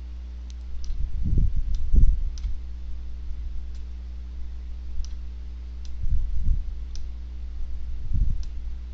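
Computer mouse clicking while an image is resized by dragging its handles: about nine sharp single clicks spaced irregularly, with a few low dull thumps around the first two seconds and again near six and eight seconds, over a steady low electrical hum.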